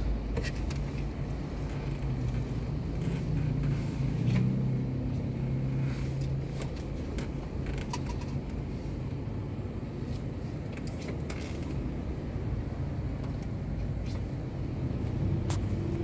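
Steady low hum of a car's engine and road noise heard from inside the cabin while crawling in slow traffic, with a few light clicks here and there.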